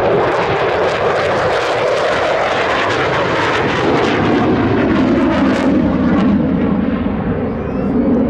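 An F-16 fighter jet making a pass on afterburner: a loud, broad jet roar with crackling through the middle, easing to a lower rumble near the end as the jet pulls away.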